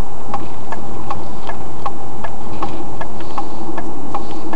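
A car's turn-signal indicator clicking at an even pace, a little over two clicks a second, over low road and engine rumble inside the cabin.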